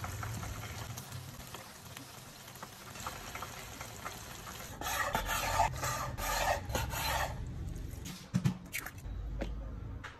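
Kitchen sounds in sequence: a soft steady sizzle from the pan, then a chef's knife slicing raw boneless chicken on a wooden cutting board in a louder run of scraping cuts about five seconds in, then a few sharp knocks of a metal measuring cup on the mixing bowl as cornstarch is tipped in.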